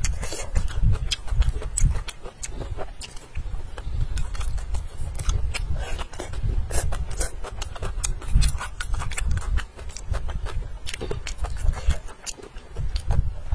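Close-miked eating sounds: a person chewing and slurping, with many quick wet smacks and clicks.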